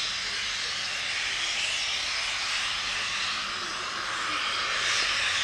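Steam hissing steadily from LMS Princess Coronation Pacific 46233 Duchess of Sutherland standing in the station, swelling and easing slowly every couple of seconds.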